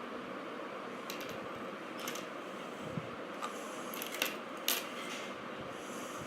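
A few short crackles and clicks of small plastic parts or wrapping being handled, over a steady hiss; the sharpest come a little past the middle.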